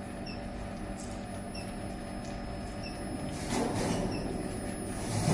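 Medium-frequency induction melting furnace running with a steady electrical hum and a faint high steady tone, small high squeaks repeating about once a second. A louder rushing noise swells about three and a half seconds in and again near the end.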